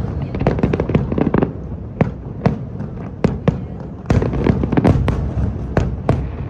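Aerial fireworks display: many sharp bangs at irregular intervals over a continuous low rumble, coming thickest about four to five seconds in.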